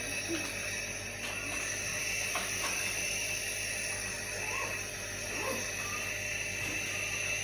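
Steady background hiss and hum, with a few faint, distant voice-like sounds near the middle.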